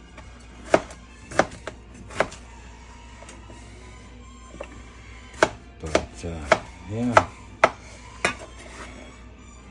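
Knife slicing peeled potatoes and striking a wooden cutting board: about eight sharp clacks in two runs, with a pause of about three seconds between them. A short wavering hum sounds during the second run.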